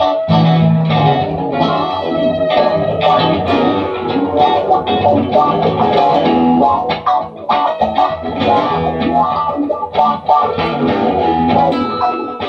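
Stratocaster-style electric guitar played through a small tweed combo amp: an instrumental passage of quick picked single-note runs mixed with chords, with short breaks about seven and ten seconds in.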